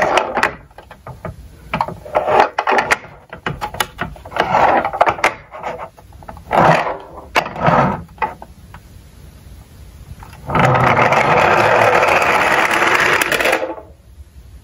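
Small toy cars clattering on a plastic slope in short bursts of clicks and rattles, then a steady rolling rattle lasting about three seconds near the end.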